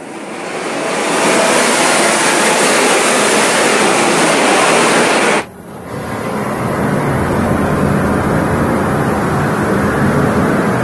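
Fireworks, an anar fountain and rockets, burning with a loud, steady hiss of spraying sparks. The first hiss cuts off suddenly about five seconds in, and a lower, rumbling hiss from the next firework takes over half a second later.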